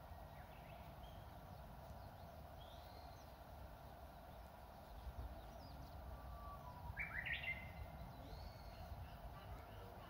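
Japanese bush warbler (uguisu) singing one phrase about seven seconds in: a brief low whistled note, then a quick rising, warbled flourish. Scattered faint high bird chirps sound over a steady background hiss.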